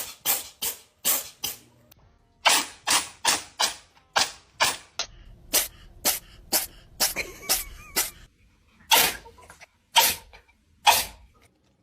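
Pet sneezing in quick succession: about two dozen short, sharp sneezes at two or three a second, in runs broken by a few brief pauses.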